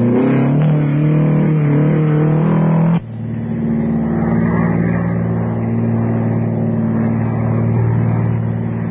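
Rally car engines at high revs: one engine rises and falls in pitch as it is worked. After a sudden cut about three seconds in, another car's engine is held at steady high revs.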